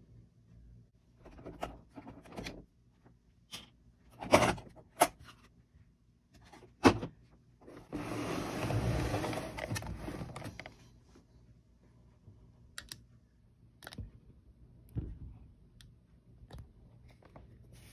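Hands working on an RC buggy at a bench: sharp knocks and clicks of parts and tools, two loud ones about four to five seconds in and another about seven seconds in. A rough scraping noise follows and lasts about three seconds, then a few faint ticks.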